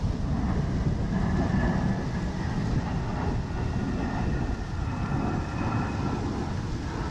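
Wind buffeting the camera microphone: a steady low rumble, with faint thin tones above it.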